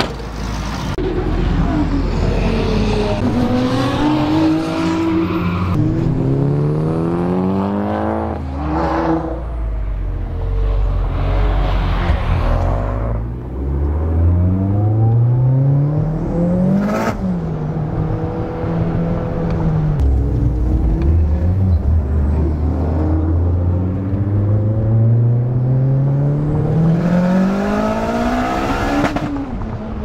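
An 800-whp Mitsubishi Lancer Evolution X's turbocharged 2.0-litre four-cylinder accelerating hard, heard from inside the cabin. The engine's pitch climbs through the revs again and again and drops back at each gear change. A sharp crack comes at the top of one pull about halfway through.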